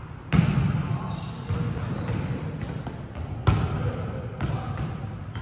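Volleyballs being struck and bouncing on a wooden gym floor during a setting drill: a series of sharp slaps, the two loudest about half a second in and about three and a half seconds in, echoing in a large sports hall.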